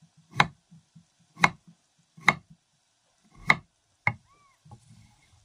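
Chef's knife slicing through a peeled raw potato and knocking on a wooden cutting board: five sharp chops, roughly a second apart, the last one lighter.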